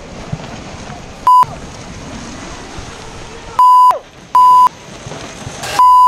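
Four short censor bleeps, each a fraction of a second long, with all other sound cut out while they last: swearing being bleeped out. Between them runs a steady rushing noise.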